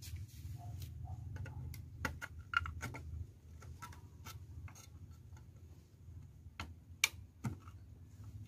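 Small screwdriver clicking and scraping against the metal shield of a CRT TV's tuner module as the cover is pried loose: irregular sharp metallic clicks, the loudest about 7 s in, over a steady low rumble.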